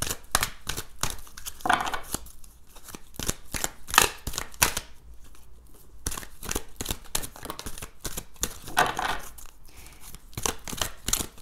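A deck of oracle cards shuffled by hand, the cards sliding and slapping together in rapid, irregular clicks, with a couple of brief swishes as cards slide out of the deck.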